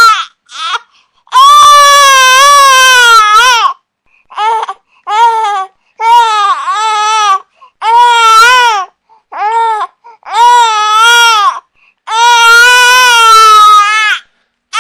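Baby crying: a run of loud, high-pitched wails, some held for about two seconds and others short and choppy, with brief pauses for breath between them.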